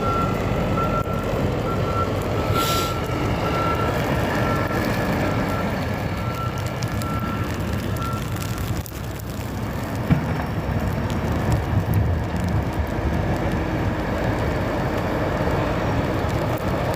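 Heavy snow-removal equipment loading a truck with snow: a big engine rumbling under load, with a vehicle's backup alarm beeping steadily until it stops about eight seconds in. There is a short hiss near the three-second mark.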